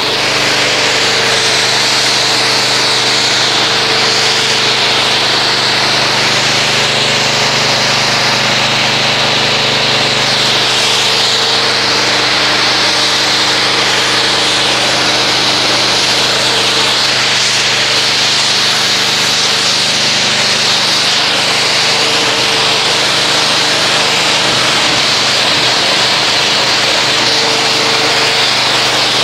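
Pressure washer running steadily while its wand jets water over a foam-covered car to rinse the soap off: a motor hum under the hiss of the spray, coming on suddenly.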